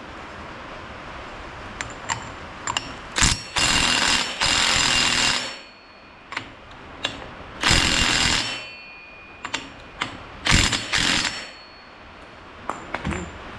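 A power tool run in three bursts of one to two seconds each, with scattered metallic clicks and taps of hand tools between the bursts, as the portal box and wheel hub are fastened back together.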